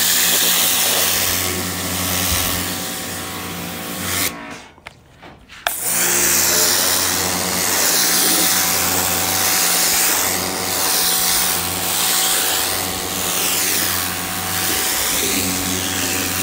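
Hart 2000 PSI pressure washer running, its pump humming under the loud hiss of the water jet spraying onto a carpet. The spraying stops for about a second and a half roughly four seconds in, then starts again.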